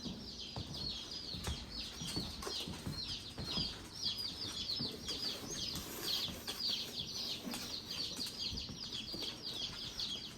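A box of newly arrived baby chicks peeping nonstop: many high, short, falling cheeps overlapping several times a second, with a few faint knocks underneath.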